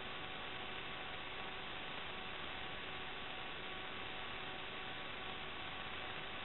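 Steady electronic hiss with a faint hum and a few thin, unchanging tones: noise on the SD DVR recorder's audio track, with no live sound.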